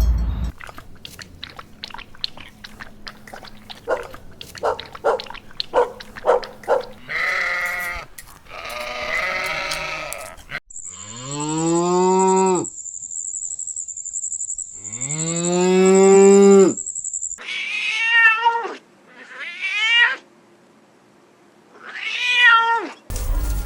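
A string of farm animal calls. A cow moos twice in the middle, each a long call that rises and falls in pitch, with shorter, higher animal cries before and after it.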